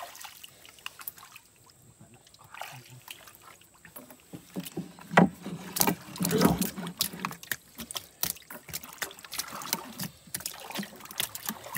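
Wet fish slapping and thudding against the bottom of a wooden boat as they are handled, with scattered knocks on the hull. The loudest thuds come a little past the middle.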